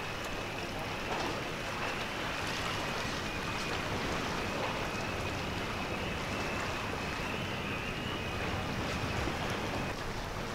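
Steady wash of wind and water noise, with a faint thin whine running through it.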